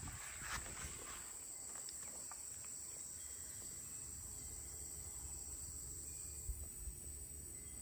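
Insects chirring steadily outdoors in a high, even drone, with a few soft taps in the first second as the monkey moves on the plastic play structure.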